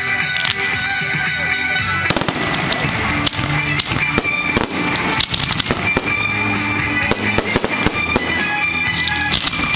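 Fireworks display: aerial shells bursting and crackling in rapid, dense succession from about two seconds in, with music playing throughout.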